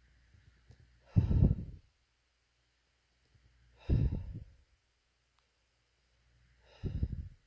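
A person sighing out heavily three times, about three seconds apart, in pain during a dystonic leg spasm.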